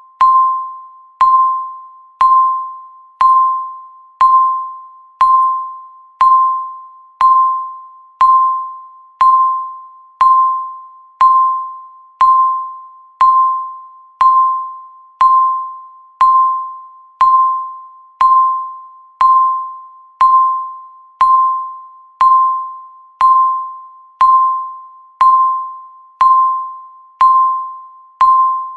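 Countdown timer's electronic beep sounding once a second: a single clear, bell-like tone that strikes sharply and fades quickly, marking each second as the timer counts down.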